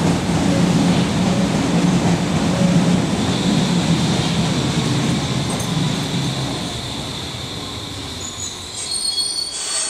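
BVG IK-series small-profile U-Bahn train pulling into a station, its rumble fading as it slows to a stop. A thin high squeal comes in about three seconds in, and several high squealing tones and a short burst of noise come near the end as it halts.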